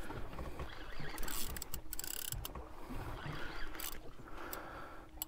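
Spinning reel being cranked to reel in a hooked fish, its gears turning, with water lapping at the boat.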